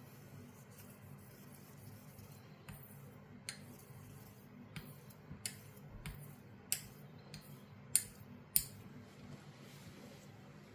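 Straight razor being worked on a hone: light metal-on-stone scraping with a series of sharp clicks, about one a second, the loudest two near the end.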